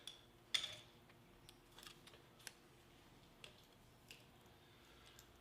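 A few faint, sharp clicks and light taps of small metal tools being handled, the clearest about half a second in, against near silence.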